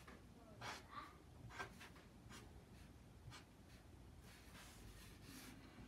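Faint strokes of a felt-tip marker drawing on paper: several short scratches about a second apart, growing fainter later on, over near silence.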